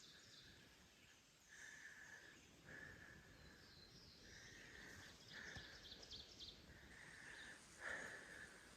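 Faint woodland birdsong: a bird repeating a level note of about half a second, six or so times, with fainter higher chirps in the middle.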